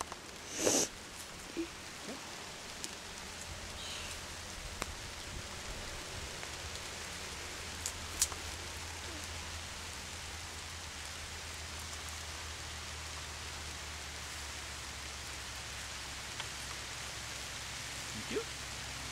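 Rain pattering steadily on leaf litter, growing a little louder as it comes on more heavily. Scattered sharp clicks are heard, with a brief scuff just under a second in.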